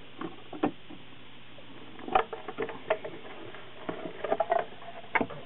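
Scattered light clicks and knocks of the plastic housing of a Harman Kardon Go + Play Micro speaker being handled and pulled apart by hand, in small clusters.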